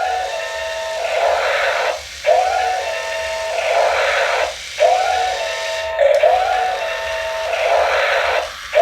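Electronic sound effect from a toy RC forklift's small speaker playing on a loop: a rising whine that holds steady, then a hiss. The cycle repeats about four times, roughly every two seconds, with a short break between repeats.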